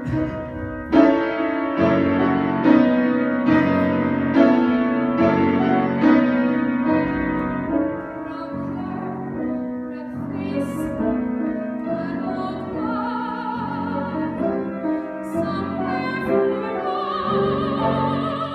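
Grand piano playing a musical-theatre accompaniment, with chords struck about once a second at first and softer held notes later on.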